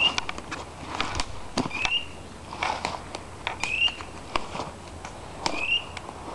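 A dog's beeper collar in point mode, giving a short rising electronic chirp about every two seconds while the pointing dog holds still on point. Footsteps rustle and crunch through dry leaves in between.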